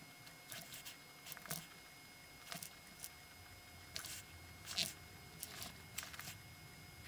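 Posca paint marker drawing on paper: about a dozen short scratchy strokes of the tip at irregular intervals, over a faint steady background hum.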